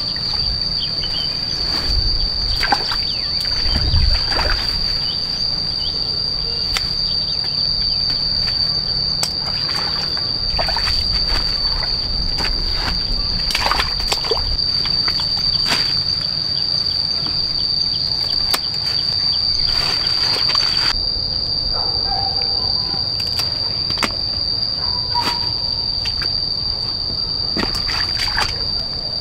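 Insects singing one steady, unbroken high-pitched tone, with scattered short clicks and rustles over it.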